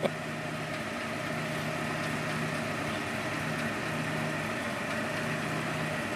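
An engine idling steadily, with a low hum that swells and fades every second or so.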